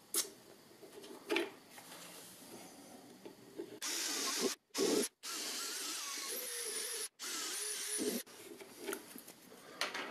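Cordless drill boring small pilot holes into a plywood drawer front, in four short runs with abrupt cuts between them, starting about four seconds in. Light taps and clicks of the plastic handle frame being positioned come before.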